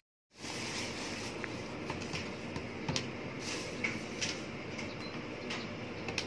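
Steady room noise with scattered light clicks and taps from things handled on a shop counter, including a plastic bag. Near the end come clicks of calculator keys being pressed.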